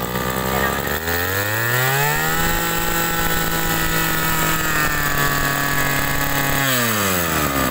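Komatsu G2KC two-stroke brush cutter engine idling, then revved up about a second in and held at high speed for several seconds before dropping back toward idle near the end.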